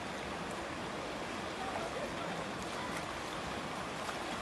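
Floodwater rushing steadily.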